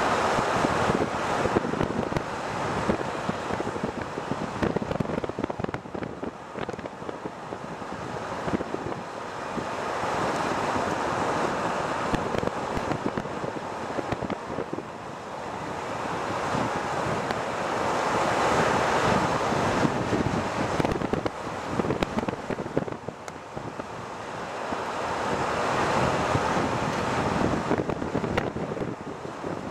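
Wind rushing over the microphone of a camera moving along a paved road, swelling and easing in slow waves every several seconds, with crackly gusts.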